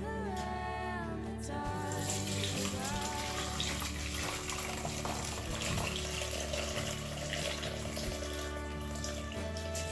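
Soft background music with sustained notes and a gliding melody. About two seconds in, a steady rushing hiss like running water comes in over it and fades out near the end.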